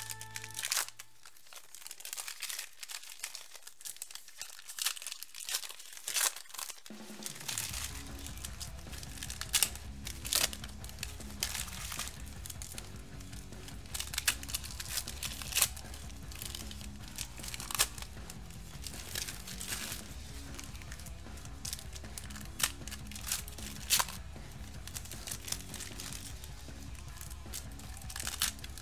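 Foil trading-card packs being torn open and crinkled by hand, in sharp crackling rips. Background music comes in about seven seconds in.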